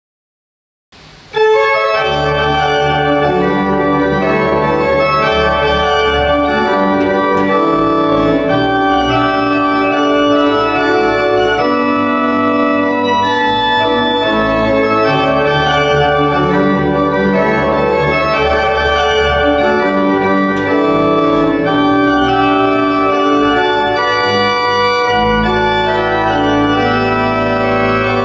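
Church pipe organ playing, with full sustained chords over deep pedal bass notes. It comes in suddenly about a second in.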